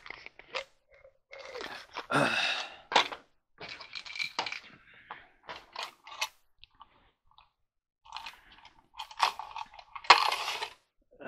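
Hand rummaging through containers of loose screws: intermittent clinking, rattling and rustling, loudest just before the end.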